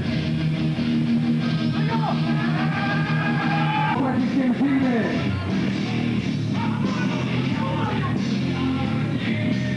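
Rock music with guitar and singing, including a few sliding notes about halfway through.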